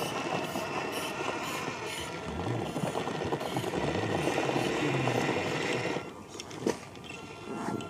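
Radio-controlled scale rock crawler's electric motor and geared drivetrain whirring under load as it crawls up rock, its tyres scrabbling on the stone. The sound drops off about six seconds in, followed by a single sharp click.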